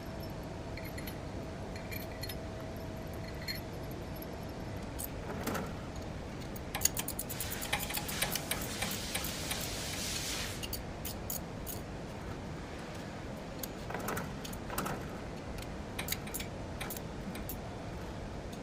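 Light metallic clinking and rattling of hand tools and pipe fittings being refitted on a screw air compressor's oil separator tank. A dense run of quick clicks and rattles comes about seven to ten seconds in, with scattered clinks later.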